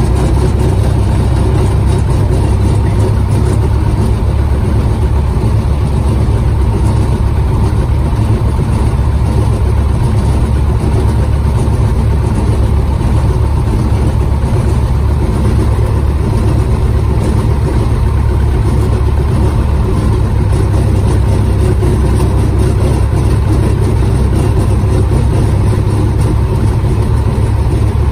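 The Rutan Defiant's two piston engines, front and rear, idling together at about 1,000 to 1,100 RPM, heard from inside the cockpit as a steady, loud drone.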